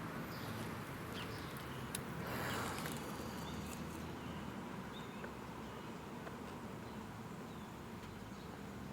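Quiet background ambience: a steady faint hiss with a single soft click near two seconds in and a few short, faint chirps scattered through it.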